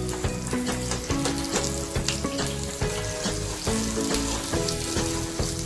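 Chopped onions frying and sizzling in hot oil in a kadai, with a metal slotted spoon stirring and clicking against the pan. A melody of held notes plays underneath.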